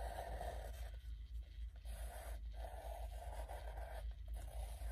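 Pencil scratching over canvas in several short strokes with brief pauses between them, going over traced lines to darken them.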